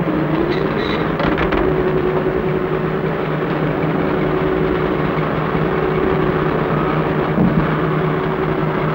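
Motor cruiser's inboard engine running steadily, its pitch rising slightly just after the start and then holding even.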